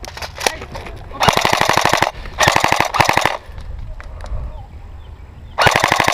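Airsoft gun firing three full-auto bursts, each a rapid, even chatter of shots lasting about a second. The last burst starts near the end.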